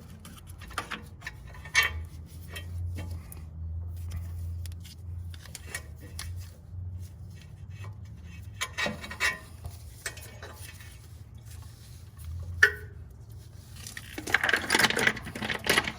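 Metal clinks and rattles of hand tools and loose parts being handled during work under a car, scattered through the stretch, with one sharp knock about three-quarters of the way through and a louder stretch of rustling and clatter near the end.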